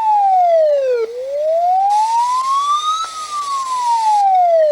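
Poland's emergency warning siren wailing: a single tone that slides down, up, and down again, each rise or fall taking about two seconds.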